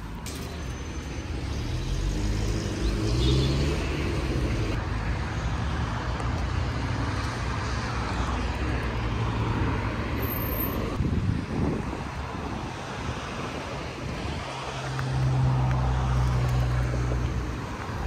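Road traffic: cars passing with engine hum and tyre noise. One engine rises in pitch about three seconds in, and another runs steadily near the end.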